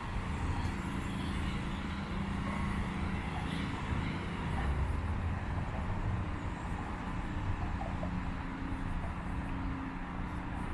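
Steady low rumble of road traffic under a broad outdoor hiss: city traffic ambience with no distinct events.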